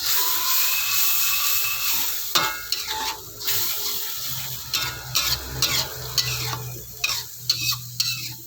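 Spice paste and freshly added cooking water sizzling in a hot pan while a spatula stirs it, scraping and clicking against the metal. The hiss is loudest in the first couple of seconds, and the clicks of the spatula come thickly after that.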